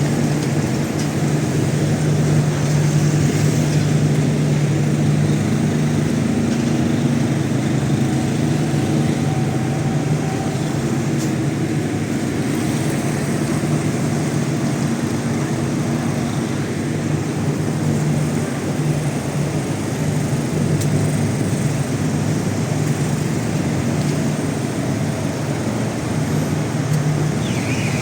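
Fuel-powered generators running steadily during a blackout, a constant loud hum with a strong low drone. Just before the end a high, wavering tone begins.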